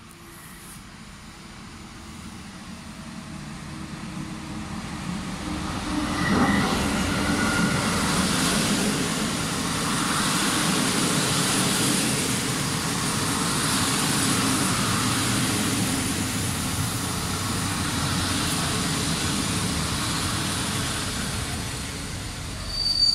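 TLK passenger train behind an electric locomotive pulling into a station. The rumble rises steadily as it approaches and is loudest as the locomotive passes about six seconds in. The coaches then run past close by with a steady rushing clatter, and a high squeal starts just before the end.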